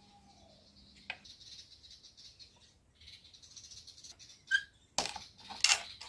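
Light clicks and rustles of small parts being handled on a wooden board, then two sharp cracks a little under a second apart near the end as a utility knife chops through a small plastic tube.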